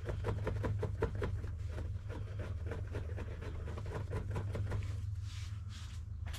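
Hand ratchet clicking in rapid runs as a nut or bolt is run down on the rear suspension, over a steady low hum. The clicking stops about five seconds in, followed by a short hiss.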